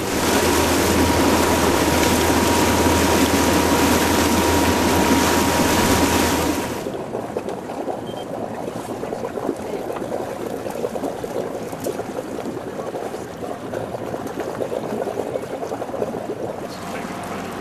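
Wind and water rushing over the microphone on a moving boat, with a steady high tone running through it. After about seven seconds it cuts abruptly to quieter lapping water.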